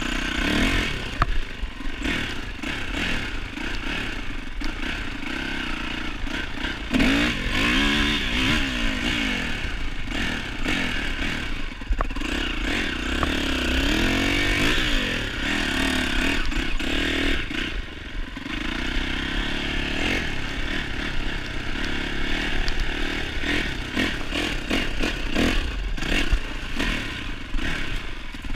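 Dirt bike engine, a 2007 Yamaha YZ450F four-stroke single, running under load on a trail ride, its pitch rising and falling as the throttle is worked. Frequent short knocks and clatter run through it as the bike goes over rough ground.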